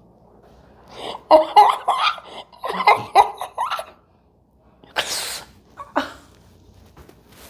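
A person laughing in quick bursts for about three seconds, then a loud, hissy breath out and a short one after it.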